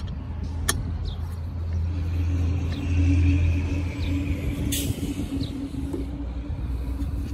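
A motor vehicle's engine running in the background as a low rumble with a steady hum, swelling to its loudest about three seconds in and then easing off. A few light clicks come from handling the roof crossbar fitting.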